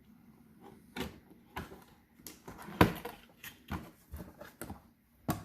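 Cardboard box being opened by hand: scattered clicks, taps and rustling scrapes of flaps and packaging, with a sharper knock about three seconds in.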